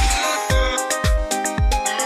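Electronic dance music with a steady kick drum, about two beats a second, over held synth chords and hi-hats.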